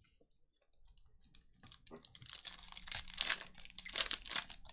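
A foil wrapper of a Panini Prizm Draft Picks basketball card pack being torn open, crinkling and crackling. After a few soft clicks of cards being handled, the crackling starts about two seconds in and gets loud.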